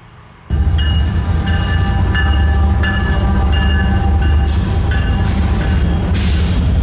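Diesel freight train running past close by, starting abruptly about half a second in with a heavy low rumble. A repeating high tone sounds about every two-thirds of a second, and two short bursts of hiss come near the end.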